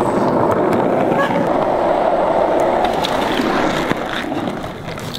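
Skateboard wheels rolling fast on rough asphalt, a steady rumble that fades over the last second as the board slows.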